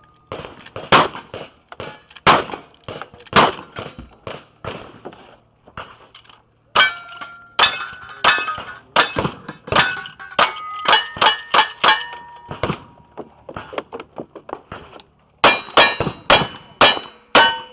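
Gunshots in a cowboy action shooting stage, most followed by the clear ring of a hit steel target. Near the end comes a quick run of about five single-action revolver shots.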